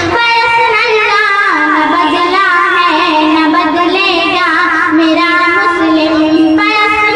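A high-pitched young voice singing a slow melody with long held notes and wavering ornaments.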